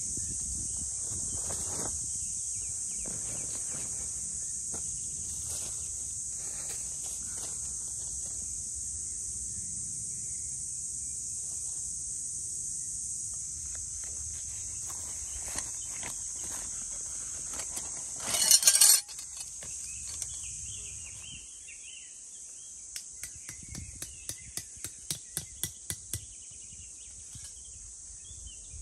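Insects buzzing steadily at a high pitch, with soft rustles of fabric and leaf litter being handled. About two-thirds of the way in there is a loud, brief rustling burst. Near the end comes a run of sharp taps, about three a second and growing louder: a tent stake being driven into the ground with a wooden stick.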